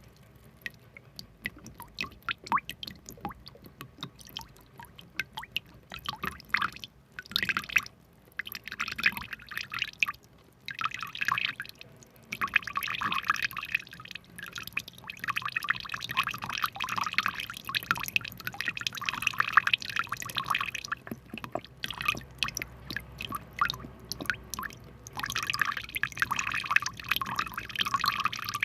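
Water dripping and splashing in irregular small spurts, becoming dense and crackly for several seconds at a time, about halfway through and again near the end.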